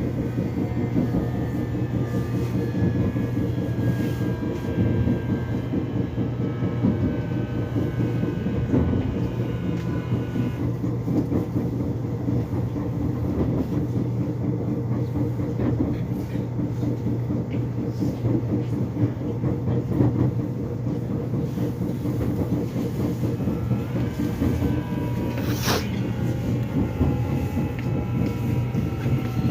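Korean subway train running on the rails with a steady low rumble. Its motor whine falls in pitch over the first ten seconds or so and rises again near the end, and there is a brief high squeal about 26 seconds in.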